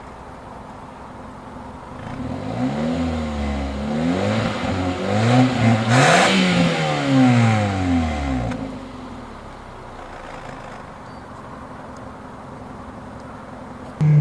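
2013 Kia Cerato's 1.6-litre four-cylinder engine, heard at the exhaust tailpipe. It idles, is revved up and down several times in quick succession, then settles back to a steady idle.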